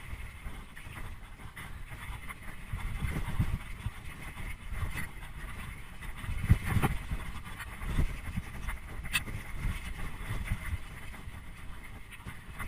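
Trek Remedy full-suspension mountain bike riding fast down a rough gravel and rock trail: a steady low rumble of tyres and rushing air, with knocks and rattles as the bike hits bumps, and one sharp click about nine seconds in.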